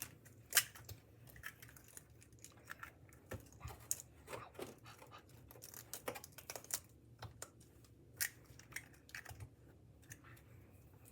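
Eggs being cracked and handled over a mixing bowl: scattered light clicks, taps and shell crackles, faint and irregular.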